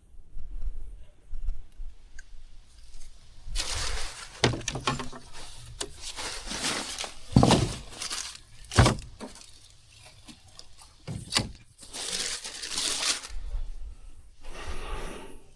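Rustling and crackling close to the microphone, in bursts, with a few sharp knocks in the middle.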